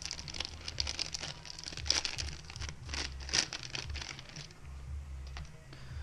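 Plastic packaging crinkling and rustling as a small bike part is handled and unwrapped, in quick crackly bursts that die down about four and a half seconds in.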